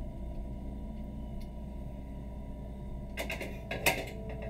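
A short clatter of clicks and knocks from kitchenware being handled, ending in one sharp knock, over a steady low hum of kitchen room noise.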